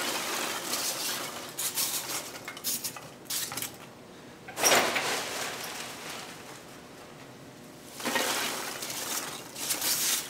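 Polystyrene packing peanuts poured from a plastic tub into a cardboard box, rattling and rustling against the cardboard in two pours with a pause between, and a short louder clatter near the middle.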